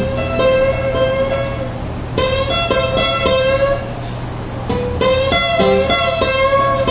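Acoustic guitars playing a picked, rhythmic instrumental intro, with no singing.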